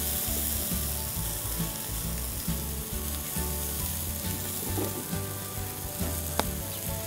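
Oiled goat leg sizzling on a wire grate over a charcoal fire, a steady hiss, with a single sharp click near the end.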